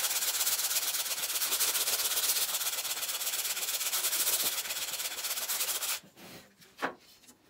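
Hand-sanding the edge of an MDF zero clearance insert with sandpaper wrapped around a wood block, steady back-and-forth rubbing that stops abruptly about six seconds in. The edge is being shaved down so the insert drops into the table saw's throat opening.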